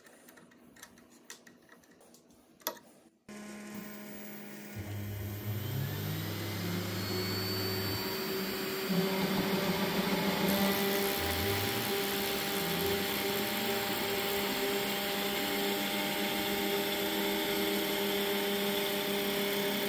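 After a few faint clicks, a TwoTrees TTC H40 CNC router's 500 W spindle starts up about three seconds in and runs steadily at high speed. Under it, the stepper motors hum in tones that step up and down in pitch as the machine moves. From about nine seconds in it gets louder as the 1/4 inch O-flute bit cuts through black acrylic.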